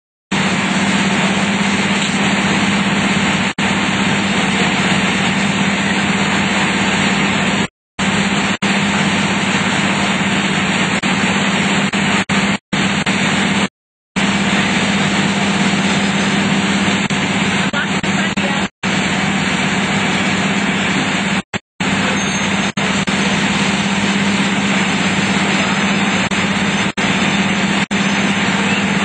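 Fire apparatus diesel engines running steadily, a constant drone under a steady hiss. The sound cuts out for a moment several times.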